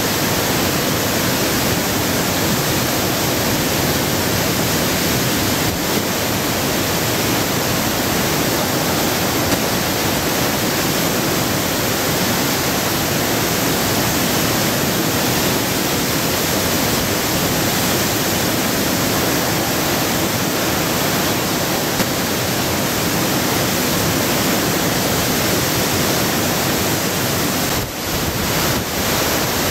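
Flash-flooded mountain river in spate, a torrent of churning whitewater rushing through a gorge as a loud, steady rush of water. The sound wavers briefly near the end.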